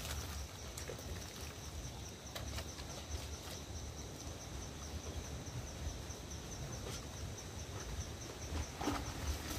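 An insect chirping in a steady, rapid, high-pitched pulse, over a low rumble and a few faint clicks.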